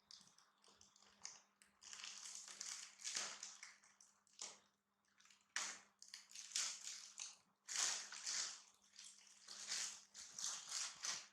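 Plastic snack bag crinkling and rustling in irregular bursts as it is handled and opened.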